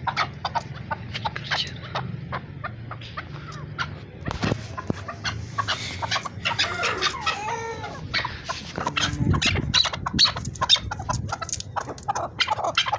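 Chukar partridge calling: a rapid series of short clucking chuk notes, with a few sliding notes about midway, growing denser and louder in the last few seconds.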